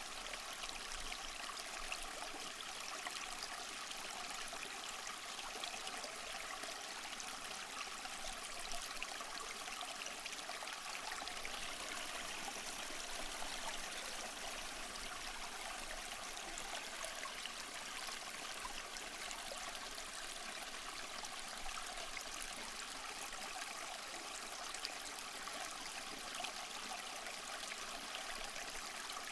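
Small waterfall splashing and trickling over mossy rocks, a steady even rush of water without pause.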